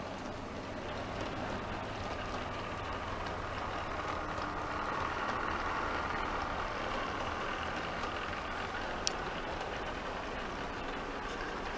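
Model VIA Rail F40PH diesel locomotive and stainless-steel passenger cars rolling past: a steady hum of the locomotive's motor and the wheels on the track, loudest about five to six seconds in as the locomotive passes closest, with one sharp click about nine seconds in.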